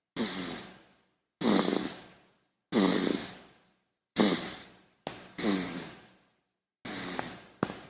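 A baby snoring: a quick, noisy breath roughly once a second, each starting suddenly and fading away.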